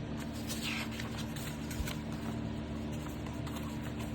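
Sheets of heavyweight patterned paper being picked up and handled, with soft rustles over a steady low electrical hum.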